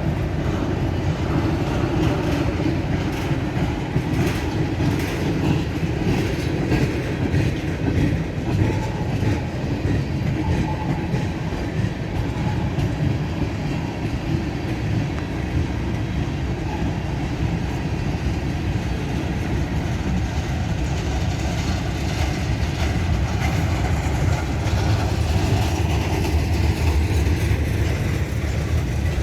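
Freight train cars rolling past slowly, their wheels clicking over the rail joints, the train held to about 10 mph by a speed restriction for rail welding.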